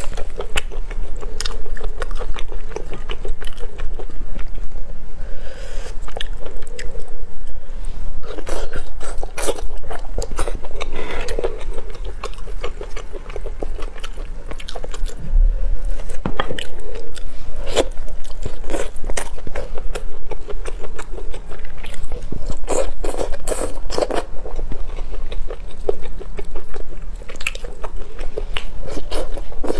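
Close-miked eating: biting into and chewing roast chicken, with wet mouth sounds and the crispy skin crunching in a steady run of small clicks. A constant low hum runs underneath.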